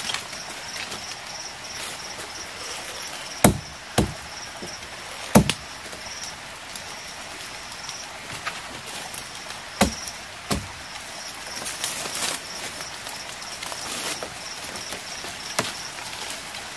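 A blade chopping into wood: five sharp strikes, three close together, then two more a few seconds later, followed by lighter knocks. Insects chirp steadily in a high pitch in the background.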